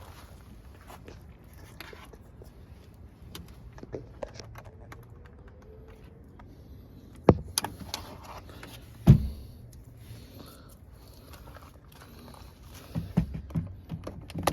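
Handling noises from fitting a car door's interior trim panel: scattered light clicks and rustles, two sharp knocks about seven and nine seconds in, and a quick run of clicks near the end.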